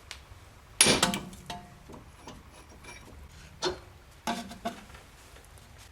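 Metal-on-metal knocks and clinks from a tie rod end puller and a socket wrench at work on steering parts. The loudest is a sharp ringing knock just under a second in, followed by a few lighter clinks.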